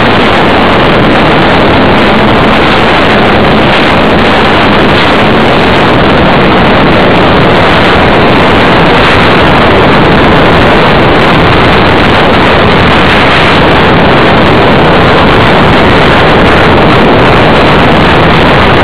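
Loud, steady rush of airflow and the brushless electric motor and propeller of a small foam aerobatic plane in flight, picked up by a camera mounted on its fuselage.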